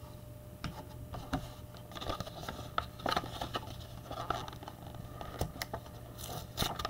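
Foil wrapper of a Donruss football trading-card pack crinkling and rustling in the hands, with faint scattered clicks and scrapes as it is handled, growing busier near the end as the top is pulled open.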